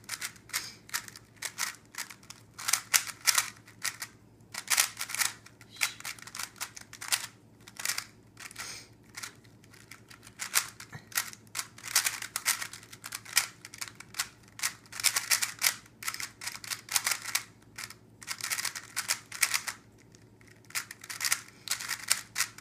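Rapid clicking and clacking of a 3x3 Rubik's-style puzzle cube being turned fast in a speed-solve. The clicks come in quick flurries with short pauses between them.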